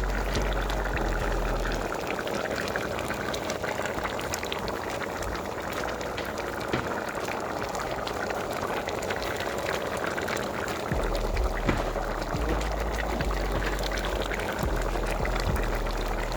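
Pot of stew peas bubbling steadily at a simmer, with many small pops.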